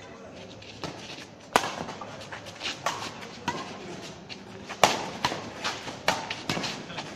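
Badminton rally: sharp racket strikes on a shuttlecock, the loudest about one and a half seconds in and again near five seconds in, with smaller clicks and knocks between them.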